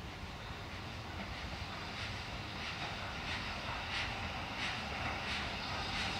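BR Standard Class 4MT 2-6-4T steam tank locomotive 80080 working steam towards the listener, over a low rumble. From about two seconds in its exhaust chuffs at about one and a half beats a second, growing louder as it nears.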